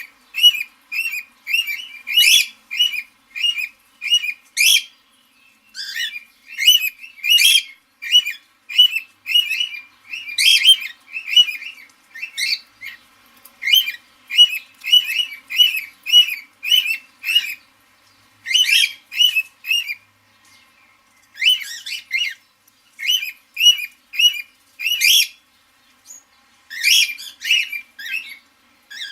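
Parrot chirping: quick, high-pitched calls repeated about two or three times a second, in runs broken by short pauses.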